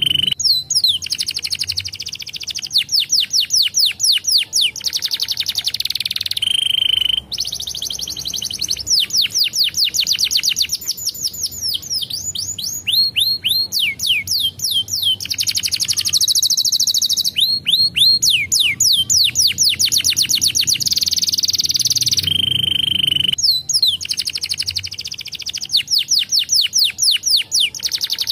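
Domestic canary singing a long, continuous song of rapid trills. Each phrase is a fast run of repeated high notes, some sweeping downward and some in a dense buzzy roll, and the bird switches to a new trill every second or two.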